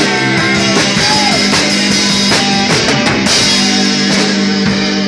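Rock band playing live: electric guitar over a drum kit, with a loud cymbal crash a little over three seconds in, after which the drum strokes thin out and held guitar chords ring on.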